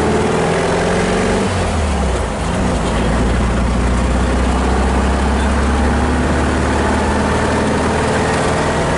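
1974 Volkswagen Thing's air-cooled 1.6-litre flat-four engine pulling the car away under acceleration. It drops briefly about two seconds in as the gearbox shifts up, then runs steadily in the next gear.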